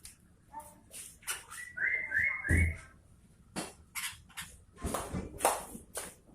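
Sooty-headed bulbul calling: a string of short scratchy notes, with three quick rising whistled notes about two seconds in.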